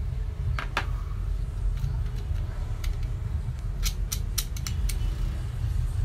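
Sharp clicks and light metal taps as the small metal parts of a dismantled vacuum-cleaner motor are handled and set down. The clicks are scattered, with a quick run of them about two-thirds through, over a steady low hum.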